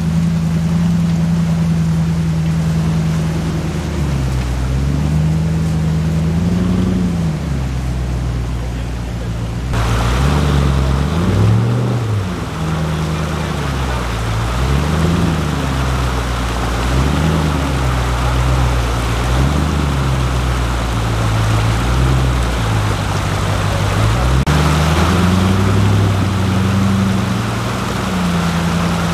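Land Rover Discovery's V8 engine, with a tuned camshaft, working under load, its revs rising and falling every couple of seconds as the truck picks its way through a shallow river. Rushing water is loud alongside it from about ten seconds in.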